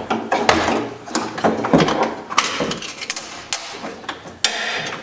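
Irregular clicks, knocks and rattling as a car door's inner carrier panel and its lock cable are handled and worked through the door.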